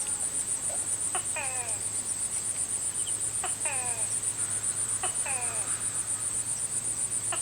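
Crickets or similar insects trilling in a steady, rapidly pulsing high chorus at dusk. An animal call repeats four times over it, roughly every one and a half to two seconds; each call is a quick upward note followed by a falling one.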